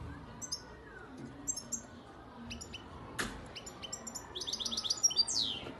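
European goldfinch singing: quick, high twittering notes that run into a rapid trill near the end and close on a falling note. A single sharp click about three seconds in.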